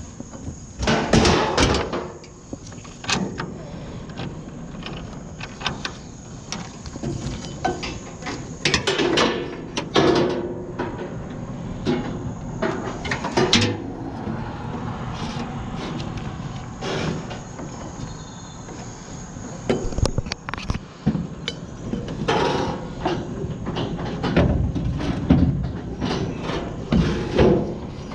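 Heavy scrap metal being handled and loaded, with irregular clanks and thumps, several of them loud. A steady high chirr of crickets runs underneath.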